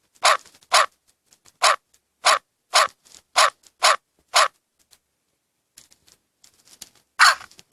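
A dog barking: eight barks in quick succession over about four seconds, then a pause and one more bark near the end.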